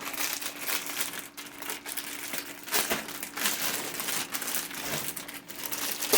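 Packaging being crinkled and torn open by hand, a continuous run of rustling with sharper crackles, the loudest just at the end. A faint steady hum runs underneath.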